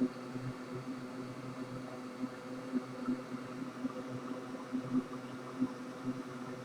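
Steady hum of a small bench fan or blower running, with faint, irregular small clicks of tools on the board.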